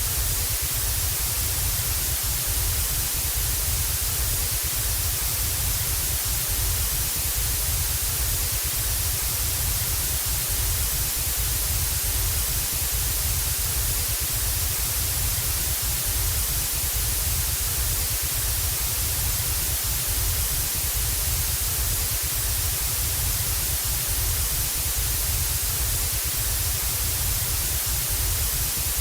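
Analogue television static: a steady, unbroken hiss of white noise with a low rumble underneath, the sound of a TV tuned to no signal.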